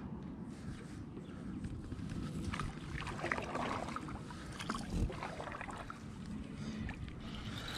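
Gear being handled aboard a plastic fishing kayak: scattered rustles and light knocks, busiest between about three and five seconds in, with a dull thump about five seconds in.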